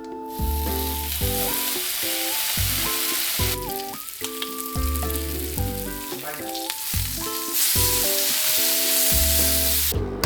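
Food sizzling in a hot frying pan, a steady hiss that pauses for about a second near the middle and cuts off just before the end. Background music plays over it.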